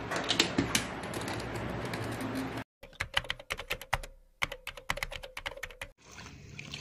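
A rapid run of sharp typewriter-style key clicks, a typing sound effect, from about three seconds in to about six seconds, with a short break in the middle. Before it, a noisy rustle with a few clicks that stops abruptly.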